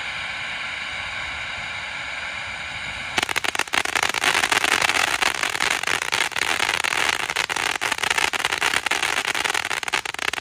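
Spirit of Freedom firework fountain spraying with a steady, slightly pitched hiss. About three seconds in it switches to loud, dense crackling that runs on until it stops abruptly at the very end.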